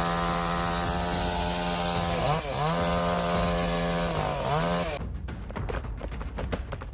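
Two-stroke chainsaw running at full throttle while cutting, its pitch dipping sharply twice as the chain bogs down in the wood and then climbing back. About five seconds in the saw stops and a rapid run of sharp cracks and snaps follows.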